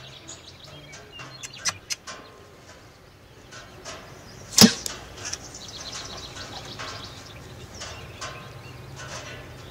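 A single shot from a Slockmaster Viper blowgun about halfway through: one sharp, loud puff as the dart is blown out. Birds chirp around it, and there are a couple of small clicks before the shot.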